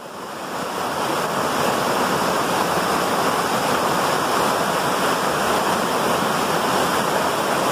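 Mountain brook rushing over small rock cascades and pools: a steady rush of falling and splashing water that fades in over the first second.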